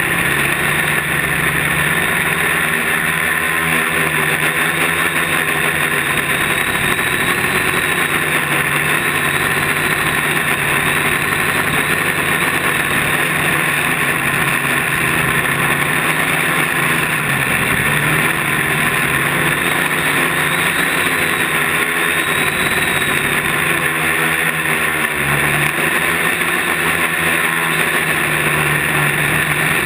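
Quadcopter's electric motors and propellers running in flight, a loud steady buzz picked up by the onboard camera, its pitch shifting a few times as the motors speed up and slow down.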